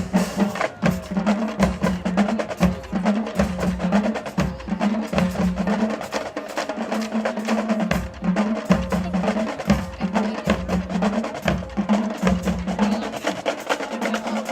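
Marching band drumline playing a percussion cadence: rapid snare and rim clicks over pitched drum beats in a steady, repeating rhythm.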